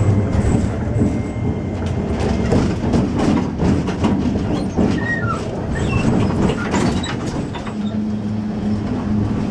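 Streetcar running along street tracks, heard from inside the driver's cab: a steady rumble with repeated wheel clicks over the rails. A steady low hum comes in near the end.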